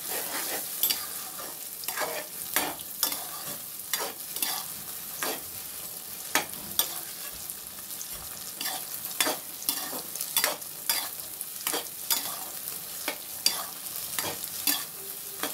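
Beaten eggs sizzling in hot mustard oil in an aluminium kadhai as a spatula stirs and scrambles them. Irregular scraping clicks of the spatula on the pan, about one or two a second, over a steady frying hiss.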